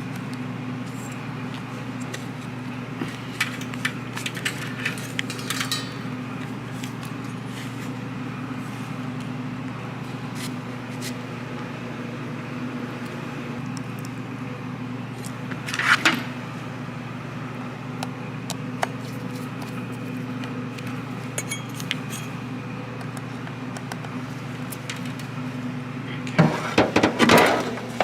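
Metal parts and tools clinking and rattling as a car's power antenna assembly is put back together, with scattered light clicks, a short rattle about halfway, and the loudest burst of clatter near the end. A steady low hum runs underneath.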